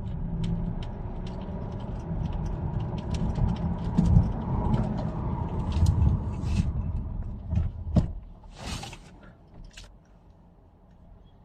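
Lexus LS460 driving, road and drivetrain rumble with scattered small clicks, during brake bedding-in stops from about 40 mph down to 10 mph. The rumble dies away after about eight seconds, with a short hiss just before it settles to a low level.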